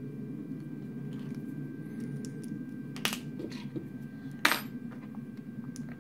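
Two light metallic clinks, a small one about three seconds in and a louder one about a second and a half later, as a steel hex key is picked up and handled against the printed extruder parts, over a low steady background hum.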